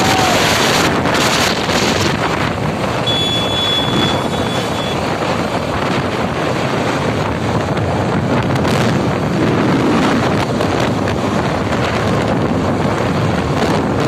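Wind buffeting the microphone of a phone carried on a moving motor scooter: a steady, loud rush of noise.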